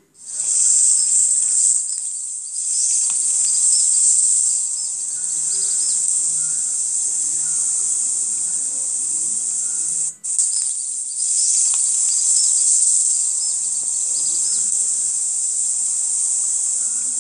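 Steady high-pitched chorus of insects. It breaks off for an instant about ten seconds in.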